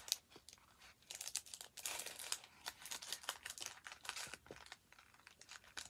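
Clear plastic packaging crinkling and rustling as makeup brushes and a pouch are handled: many short, irregular crackles.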